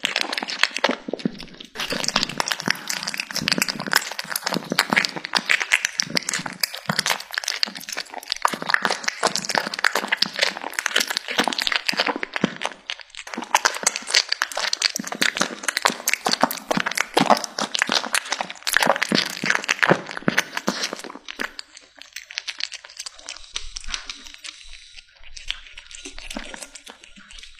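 A kitten chewing and tearing raw chicken: a dense, rapid run of crunching clicks that grows quieter and sparser about three-quarters of the way through.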